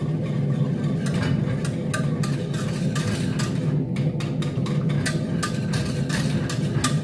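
Spoon stirring and scraping ground-beef sauce in an aluminium pot, many short scrapes and clicks, over a steady low hum.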